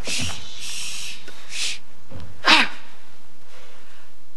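A woman gasping in exaggerated rapture: a few short, breathy intakes of breath, then a louder gasp with a sliding pitch about two and a half seconds in.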